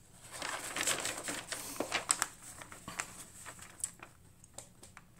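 Packaging rustling and crinkling as a cosmetic product is handled, with light clicks and taps, fading out about four seconds in.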